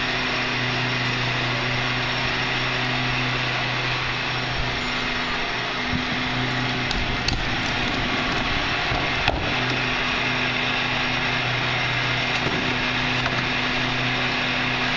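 A Crane Carrier LET garbage truck's diesel engine running steadily at idle, with an even mechanical hum. A few sharp clicks and knocks about seven and nine seconds in come from the plastic recycling cart as it is wheeled over the pavement to the rear loader's tipper.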